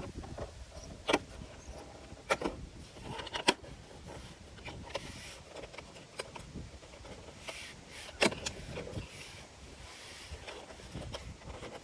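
A few irregular sharp clicks and taps of plastic being handled on a car's side-mirror housing and turn-signal cover.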